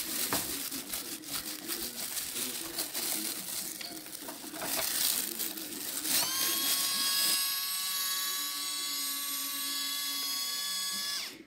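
Plastic glove crinkling against raw pork ribs as sugar is rubbed in, then an electric salt-and-pepper grinder whirring. The grinder's motor starts about six seconds in with a short rise in pitch, runs steadily for about five seconds, and cuts off suddenly near the end.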